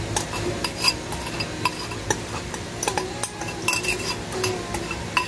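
Kitchenware clinking and tapping: a glass bowl of sugar tipped and knocked against a stainless steel mixing bowl, with irregular sharp clicks a few times a second.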